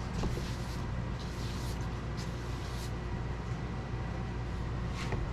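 Steady low machine hum, like a motor or fan running, with a few faint clicks and taps.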